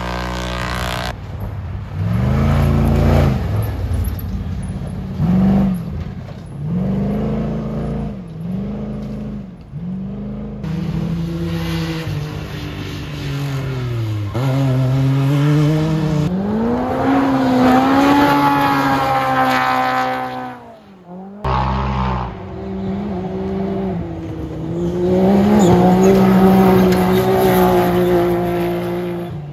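Off-road racing side-by-side UTV engines revving hard as the cars pass along a dirt course. The pitch climbs and falls with throttle and gear changes: a run of short quick rises, then a long climb. The sound cuts abruptly twice as one pass gives way to the next.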